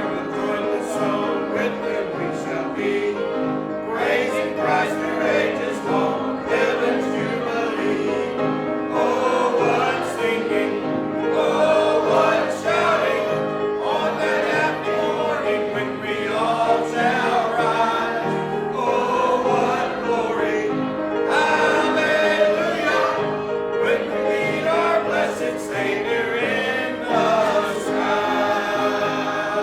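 A church congregation singing a hymn together.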